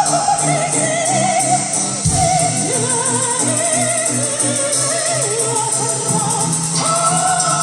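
Live metal-opera music: an operatic soprano sings held notes with wide vibrato over sustained low accompaniment.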